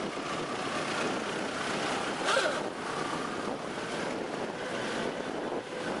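Vintage Ford cars running at low speed as they drive off in procession, under steady wind noise on the microphone. A brief sharp sound rises above it a little over two seconds in.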